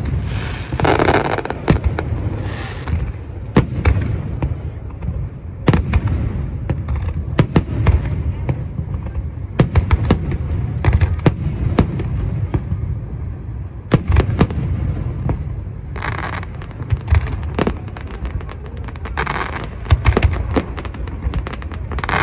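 Aerial fireworks bursting in quick, uneven succession over a continuous low rumble of booms, with stretches of crackling after some of the bursts.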